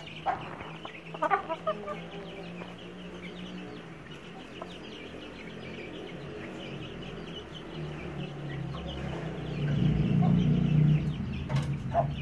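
Aseel hen clucking, with short calls in the first couple of seconds and again near the end, a hen that has just laid her first egg.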